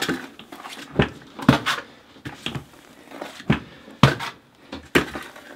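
Steel notched trowel scooping modified thin-set out of a plastic bucket and slapping it onto the OSB subfloor. About eight sharp, irregular knocks with scraping between them.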